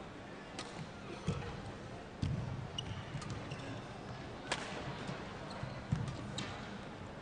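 Badminton rally: rackets strike the shuttlecock several times with sharp cracks at irregular spacing, the loudest about four and a half seconds in. Players' shoes thud and squeak on the court floor in between.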